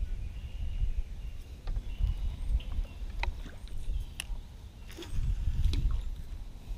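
Small fishing boat on open water: an uneven low rumble, like wind and water moving against the boat, with a few sharp clicks and taps scattered through the second half.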